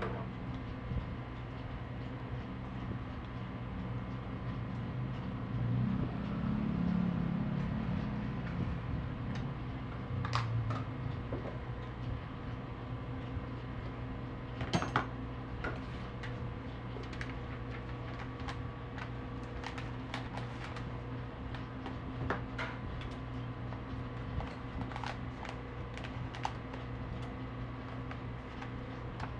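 Steady hum of shop equipment, with scattered light clicks and taps from handling food: strawberry slices being set into a bubble waffle, which then goes into a paper cone. The clicks come more often in the second half.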